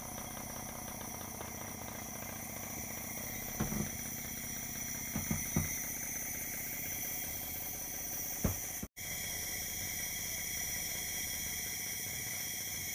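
Compressor nebulizer running with a steady hum and hiss, with a few short knocks between about four and eight and a half seconds in. The sound cuts out for an instant about nine seconds in and then carries on.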